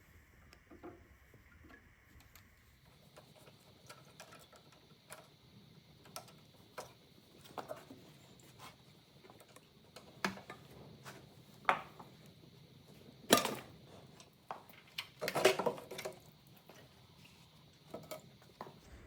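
Hand tools clinking and knocking on metal engine parts: scattered short clicks, with louder knocks about 13 seconds in and a cluster about 15 to 16 seconds in.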